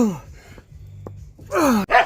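A man groaning with effort twice, each groan falling in pitch, while straining to unscrew a tight tie rod end, with a sharp click near the end.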